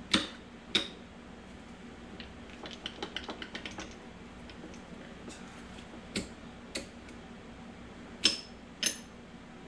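Metal transmission parts clinking as they are handled and set in place: three pairs of sharp clicks, plus a quick run of light ticks about three seconds in.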